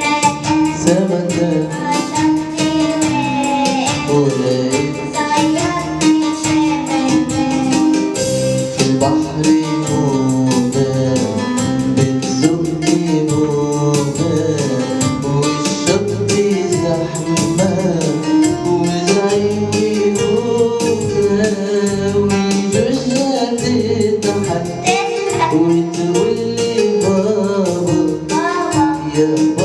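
A song: a voice singing a melody over an instrumental backing with a steady percussive beat.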